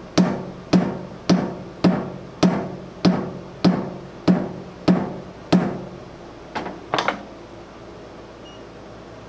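Repeated hammer blows on steel, a little under two a second, each ringing briefly at the same pitch. Two lighter taps follow about seven seconds in, then the striking stops.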